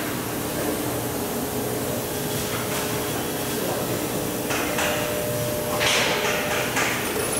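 Oxy-fuel gas welding torch flame hissing steadily while brazing brass onto a steel pipe joint, with two louder rushes of hiss about four and a half and six seconds in.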